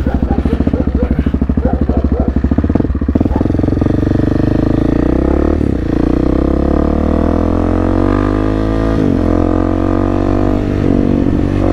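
Husqvarna 701 Supermoto's single-cylinder engine, running at low revs with a slow, even pulse as the bike pulls away. It then revs up through the gears, with short breaks for upshifts about six and nine seconds in.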